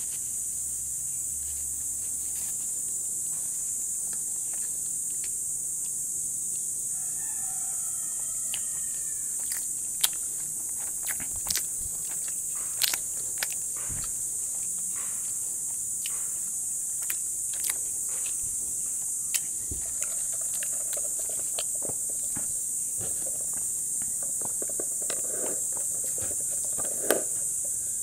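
A person eating and drinking: scattered mouth clicks and smacks, then slurping a drink through a straw in the last several seconds, over a steady high hiss.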